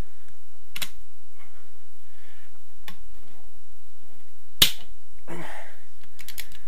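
A 12mm socket on a long torque wrench breaking loose a tightened cylinder-head bolt on a Honda VFR800Fi V4 engine: a few light clicks as the socket and wrench are worked on the bolt, then one sharp crack about four and a half seconds in as the bolt lets go.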